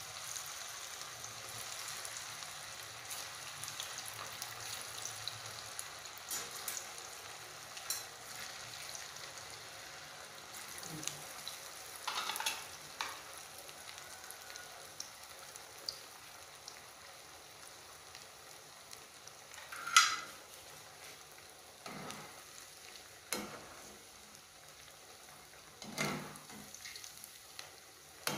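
Potato snack pieces deep-frying in hot oil in a metal pan: a steady sizzle that gradually quietens, with a few sharp knocks of a spoon against the pan, the loudest about two-thirds of the way through.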